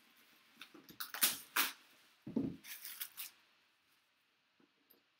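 Clear plastic shrink wrap crinkling and tearing as it is pulled off a cardboard jersey box, in several quick rustling bursts, with a dull thump of the box being handled about two and a half seconds in.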